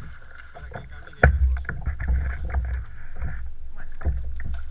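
Boots splashing through shallow water as a man in waders wades beside a plastic sit-on-top kayak and handles it, with knocks on the hollow hull, the loudest a sharp knock about a second in, over a steady low rumble.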